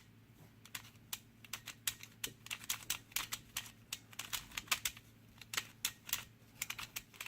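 Cubing Classroom pyraminx being turned by hand, its plastic pieces clicking sharply, several irregular clicks a second.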